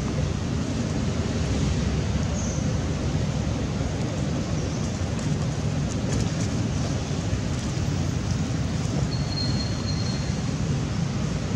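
Steady rushing background noise, strongest in the low range and unchanging throughout, with a faint thin high note lasting about a second a little before the end.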